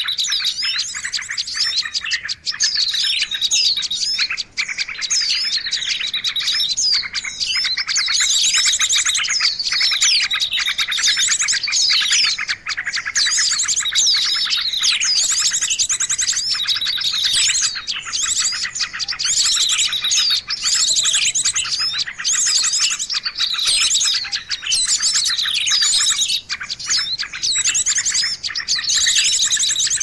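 Bird-lure recording of small songbirds calling, dense and unbroken: many quick downward-sliding chirps overlap with runs of rapid high trills.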